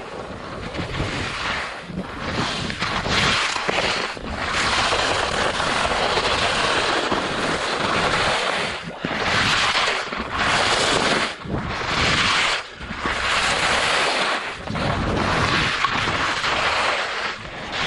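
Skis hissing and scraping through snow turn after turn, swelling and dropping away every second or two, mixed with wind rushing over the microphone.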